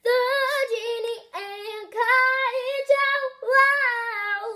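A girl singing unaccompanied in a high voice, in about four short phrases of held and gliding notes.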